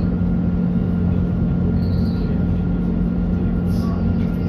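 Alstom Citadis tram running along its line, heard from inside the car: a steady low hum over the rumble of the wheels on the rails.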